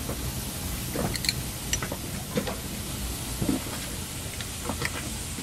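A small steel spanner clicking and scraping against the bolts on the flange of a yacht autopilot's electric drive motor as they are slowly undone: scattered light clicks at irregular intervals over a steady low hum.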